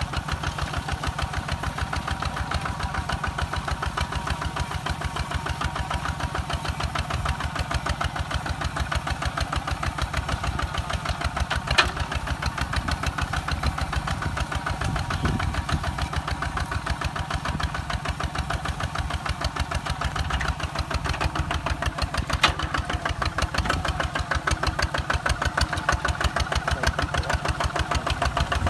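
Kubota ZT 155 DI single-cylinder diesel on a two-wheel walking tractor, chugging steadily under load as it pulls a disc plough through the soil. Two sharp knocks stand out, one near the middle and one about three-quarters through.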